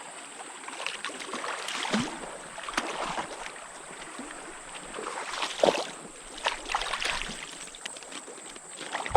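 Stream water running, with irregular splashes and sloshes as a hooked brown trout is fought and landed.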